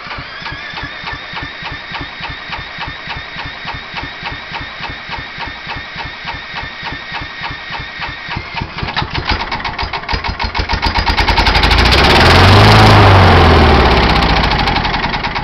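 Kawasaki FC150V single-cylinder mower engine on a 1996 John Deere JX85, spun over by an electric drill with its motor whining under a steady cranking beat. About nine seconds in it catches on sprayed carburetor cleaner and speeds up, running loudly for a few seconds before dying away. It will not keep running, which the owner puts down to a plugged, rusty carburetor.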